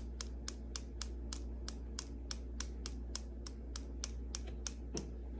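Fingernail flicking a plastic insulin syringe to knock loose tiny air bubbles: a rapid, even run of light clicks, about four a second, ending with a slightly heavier knock near the end.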